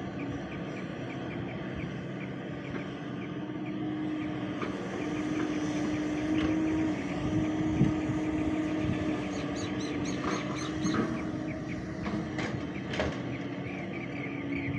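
Hyundai crawler excavator's diesel engine running with a steady hum, growing louder through the middle as it works under load to lift and swing a bucket of soil. A few sharp knocks come in the last third.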